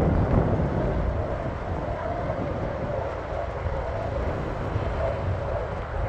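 Wind buffeting the microphone with a heavy low rumble, over the faint steady engine drone of a small plane landing.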